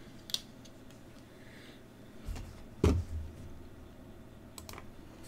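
Computer mouse being handled on a workbench: a light click near the start, one sharp knock about three seconds in, and two quick clicks near the end.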